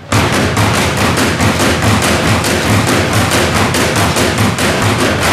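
Percussion ensemble drumming on blue plastic cases, a fast, even run of sharp strikes at about seven a second.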